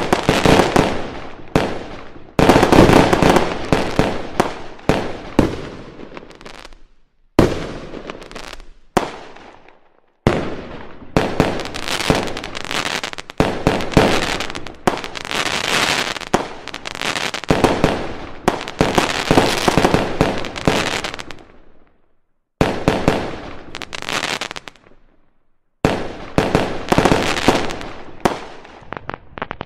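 Fireworks crackling and popping in dense runs of rapid sharp cracks. Each run starts loud and trails off, with brief silences between them.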